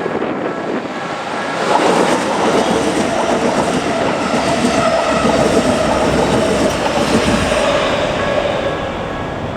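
Keikyu Line electric train passing over the crossing, its wheels clattering over the rail joints; the rush of noise swells about a second and a half in and eases near the end. The crossing's warning bell rings through it, heard clearly again as the train fades.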